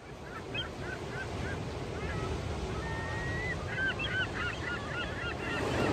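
Birds calling in runs of short squawks, busiest about two-thirds of the way through, over the steady noise of sea waves breaking below a cliff.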